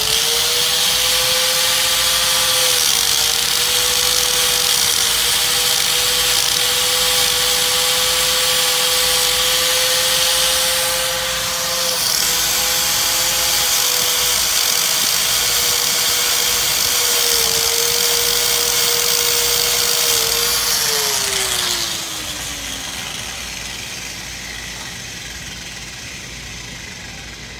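Small corded electric grinder running at high speed against the metal sealing surface of a brake hose banjo fitting, cleaning it for a new caliper: a steady high whine with a hiss of abrasion, dipping briefly in pitch under load. About 21 s in it is switched off and the whine falls away as it spins down.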